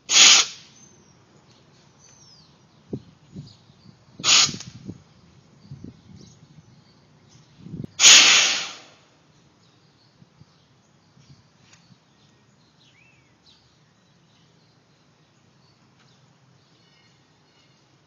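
Steam hissing in three short, loud puffs about four seconds apart from a home-made plumbing-pipe steam boiler and engine, the last puff the longest, with light clicks and knocks between them.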